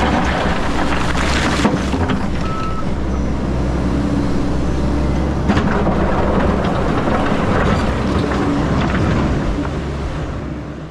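Diesel engine of an XCMG 180 crawler excavator running steadily under load, with a few faint knocks, fading out near the end.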